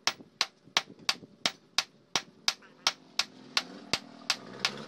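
Hand hammer beating a red-hot rebar knife blade on a steel anvil: steady, evenly spaced ringing blows, about three a second. A hiss builds up near the end.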